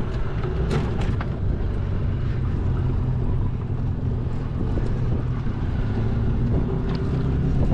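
Outboard motor on a small aluminium jon boat, just started and running steadily.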